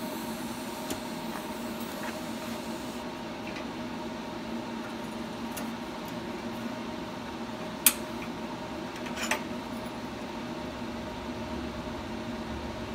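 Steady machine hum. Two sharp metallic clinks, about eight and nine seconds in, come as the steel clamps on the welding fixture table are handled.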